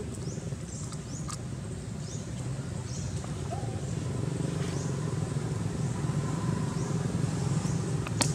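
Steady low engine-like rumble that grows slowly louder, with short high chirps repeating every second or less and a sharp click near the end.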